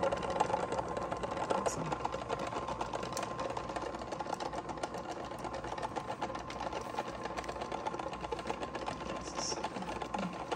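Homemade rotating tumbler running steadily as it works black sand and mercury: a continuous motor hum with a dense, fast rattle from the turning barrel.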